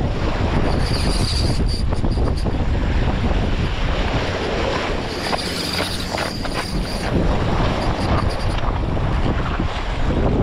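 Strong wind buffeting the microphone over waves washing against the jetty rocks, a steady rushing noise.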